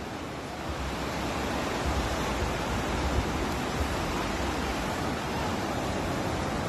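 Steady wash of surf, with gusts of wind rumbling on the phone's microphone.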